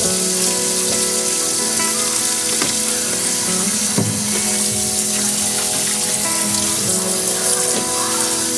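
Kitchen tap running into a stainless steel sink, splashing into a plastic container as it is rinsed, with background music.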